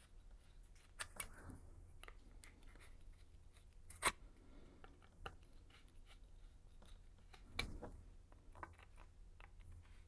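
Small hand drill turned by hand in the holes of a 3D-printed plastic part: faint scraping of the bit in the plastic, with a few sharp clicks, the loudest about four seconds in.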